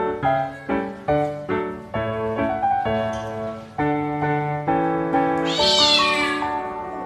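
Background music: a melody of short, evenly paced notes, about two or three a second at first, then longer held chords. About six seconds in, a high-pitched animal cry slides downward over about a second.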